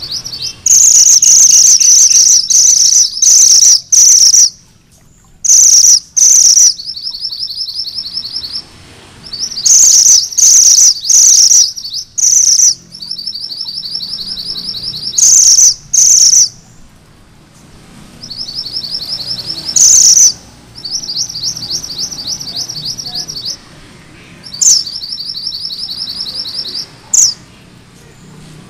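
Male minivet ('mantenan gunung merah') singing its rolling 'ngerol' song: rapid trains of high, repeated chattering notes, each about one to two seconds long, with short pauses between them. Several phrases are very loud.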